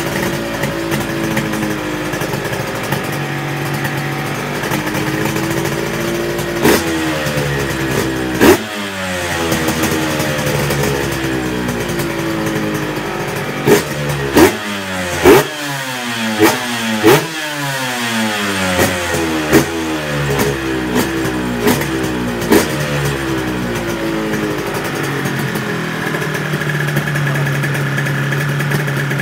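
Honda NSR250 two-stroke V-twin with expansion-chamber exhausts, idling, then blipped about a dozen times in quick succession, each rev rising sharply and falling back, from about seven seconds in to about twenty-three, before it settles back to a steady idle.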